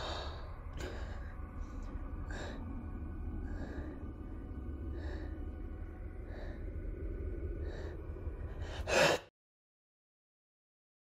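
A man breathing in short, tense gasps about once a second over a low steady rumble. A louder gasp comes near the end and is cut off into dead silence.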